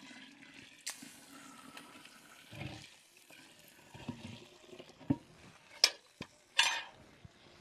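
Strained tamarind and masa pulp being poured into a pot of hot piloncillo and cinnamon syrup: a splashing, hissing pour lasting about two seconds, followed by a few sharp knocks.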